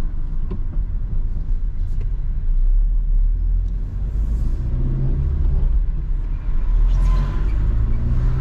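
Car engine and road noise heard from inside the cabin while driving in town traffic: a steady low rumble, with a deeper engine hum coming in about halfway through.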